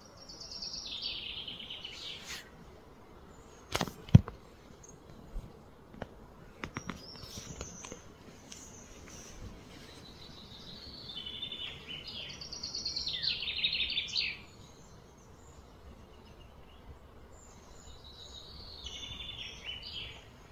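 Outdoor ambience with three bouts of high, rapid trilling calls, one near the start, a longer one in the middle and a shorter one near the end. A single sharp click about four seconds in is the loudest sound, followed by a few fainter clicks.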